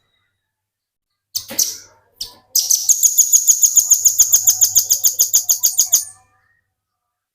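Velvet-fronted nuthatch giving a few short high calls, then a fast, rattling trill of evenly repeated high notes, about nine a second, for about three and a half seconds before it stops abruptly.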